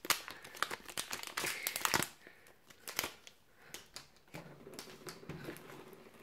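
Foil clay packet crinkling and crackling in hand as white clay is squeezed out of it, densest in the first two seconds. Then faint sounds of hands pressing the clay into fluffy slime and stretching it.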